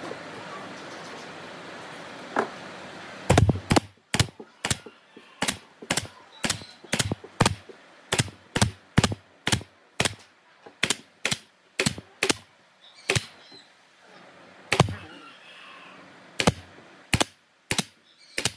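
JOK pneumatic brad nailer firing again and again, driving brads through a plywood panel into a wooden box frame. The sharp shots begin about three seconds in and come in quick runs of two or three a second, with a few longer pauses near the end.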